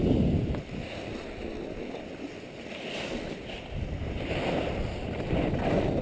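Wind buffeting a camera microphone while skiing downhill, with the hiss of skis scraping over packed snow rising and falling through the turns.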